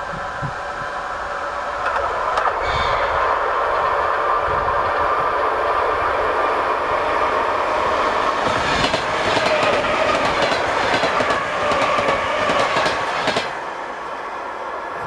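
Train running on the rails, wheels clacking over the rail joints in quick runs of clicks through the loud middle part; the noise drops off sharply about 13 seconds in.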